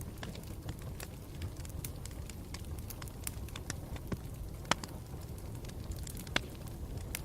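Campfire burning with a steady low rumble and irregular crackles and pops, two sharper pops about two-thirds of the way through.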